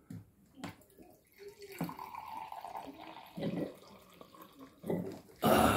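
Water pouring from the cold tap of a Midea countertop water dispenser into a drinking glass, a steady stream lasting about a second and a half. A few short sounds follow it, and there is a louder burst of sound near the end.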